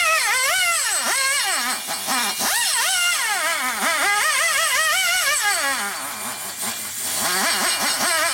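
High-speed die grinder porting the aluminium exhaust port of a Harley-Davidson Twin Cam 110 cylinder head. Its loud whine dips and recovers again and again as the burr is pressed into the metal, over a steady hiss.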